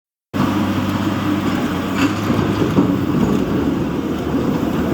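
Diesel engine of a JCB 3DX backhoe loader running steadily. The sound cuts in abruptly just after the start.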